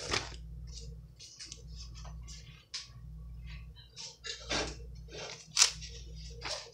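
Comic book pages being handled and turned by hand: a series of short, quiet rustles, with one sharper snap of a page about five and a half seconds in, over a steady low hum.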